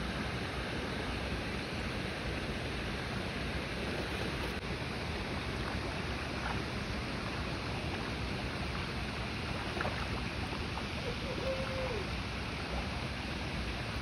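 Steady rushing of a waterfall, an even roar of falling water with no breaks.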